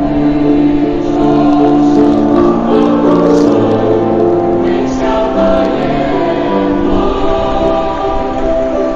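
Mixed-voice school choir singing under a conductor, holding long notes in harmony.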